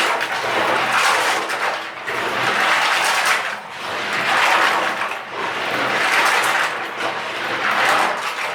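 Lego pieces being scrubbed and swished in water by hand, a loud hissing wash that swells and fades about every one and a half to two seconds.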